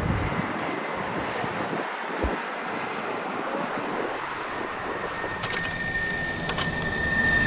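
Steady rushing noise of a jet airliner's engines. In the last couple of seconds a high ringing tone and a few clicks come in.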